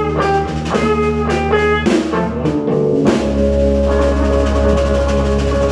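Live band playing: electric guitar picking a melodic line of separate notes over drums and bass. About three seconds in comes a sharp hit, and the band then holds a full chord.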